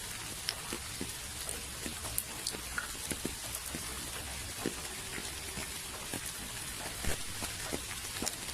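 Steady rain: a constant hiss with many separate drops ticking sharply and irregularly close by.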